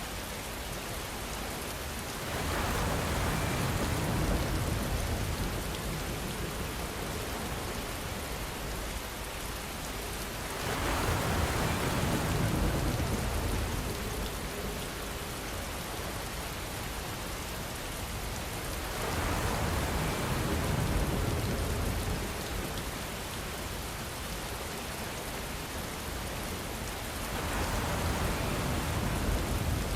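Steady rainfall, an even hiss that swells louder and fuller four times, roughly every eight seconds, each swell lasting a few seconds.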